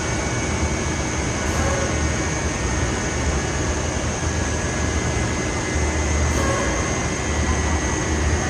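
Steady din of rock wool production-line machinery running, with a low rumble and a constant high-pitched whine over it.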